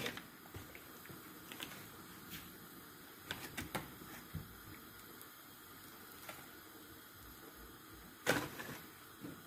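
Faint kitchen handling sounds as a block of butter is put into a bowl of flour and pressed by hand: a few light clicks and taps, then a louder single knock about eight seconds in.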